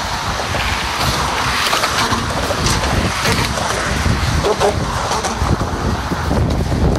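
Wind buffeting the microphone in uneven gusts, over the rush of traffic passing on the Golden Gate Bridge roadway.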